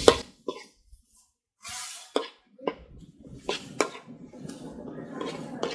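A steel spoon clicking and scraping against a metal pan now and then as diced onions and tomatoes are stirred in it, with a faint frying hiss growing in the second half. The sound drops almost to nothing for about a second near the start.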